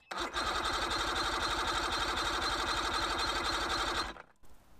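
Electric starter cranking a 1990 Mercury 75 hp three-cylinder two-stroke outboard for a compression test, a steady rhythmic churn that starts abruptly and cuts off suddenly about four seconds in.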